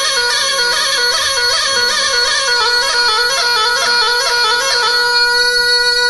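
Bagpipe music: a piped melody over a steady drone. About five seconds in the melody stops and the drone holds alone.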